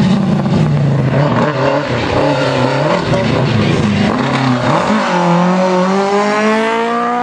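Rally car engine running hard on a stage, its note rising and falling for a few seconds, then climbing steadily in pitch over the last two seconds as the car accelerates.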